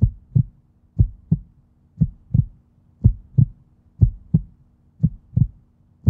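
Heartbeat sound effect: paired low thumps, lub-dub, repeating about once a second over a faint steady hum.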